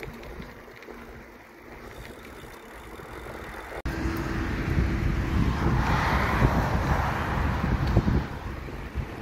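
Wind noise buffeting the microphone during a bicycle ride, a steady low rumble. It is fainter at first and jumps abruptly louder about four seconds in.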